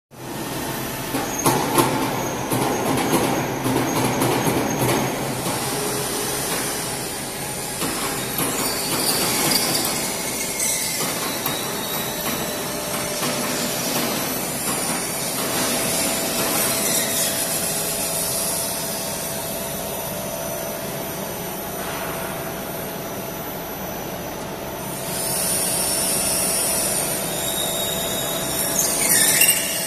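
CNC vertical machining center running a trial program: spindle and axis drives whirring, the sound shifting as the program steps, with a steady high whine through the second half.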